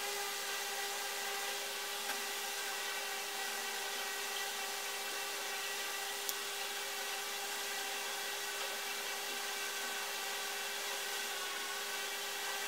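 Steady background hum: an even hiss with a constant whine of several steady tones, like a small motor or fan running. A faint click comes about six seconds in.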